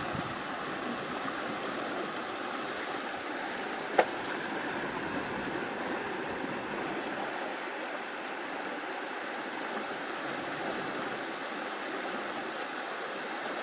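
Steady rush of flowing water, with a single sharp click about four seconds in.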